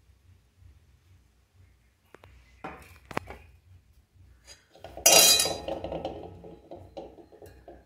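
Steel kitchen utensils clinking: a few light clinks of a spoon and small steel cups, then a loud metal clatter about five seconds in that rings out and fades.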